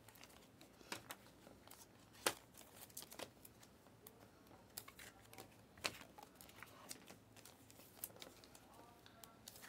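Trading cards being flipped through and handled, with faint scattered clicks and slides of card stock and a few sharper clicks.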